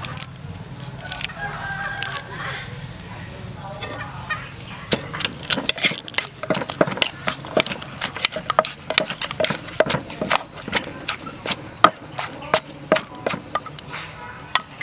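Wooden pestle pounding vegetables and chilies in a clay mortar: a quick run of dull knocks, about three a second, starting about five seconds in, as the salad ingredients are bruised and mixed.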